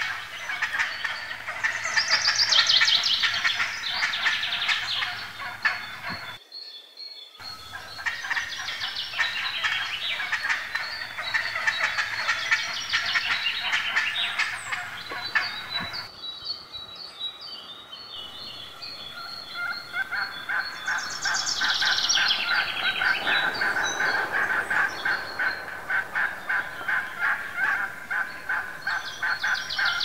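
Turkeys gobbling over and over, fast rattling calls from several birds overlapping, with a short break about six seconds in.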